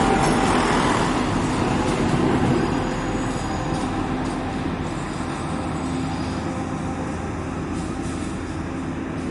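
A train running past on the rails, a dense rumble that slowly fades away.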